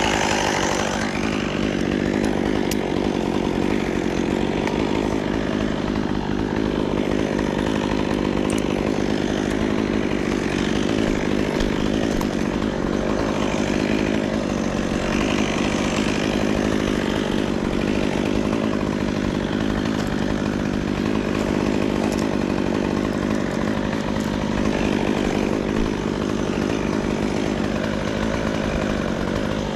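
Chainsaw engine running steadily at an even speed, with no clear revving.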